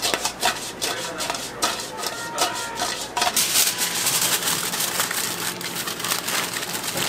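Metal ladle clanking and scraping against a wok as sauced fried pork is tossed, with some clinks briefly ringing. About three seconds in, foil-lined paper packaging crinkles steadily as it is handled.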